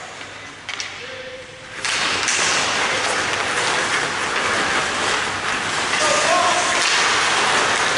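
Arena music cuts off right at the start, leaving a brief lull with a couple of knocks. About two seconds in, a steady noisy rush of ice-hockey play takes over: skates scraping the ice and players' calls.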